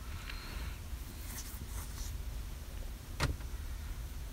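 Glove box lid of a 2016 Lexus RX 350 being shut: a soft swish near the start, then a single sharp latch click about three seconds in, over a low steady hum.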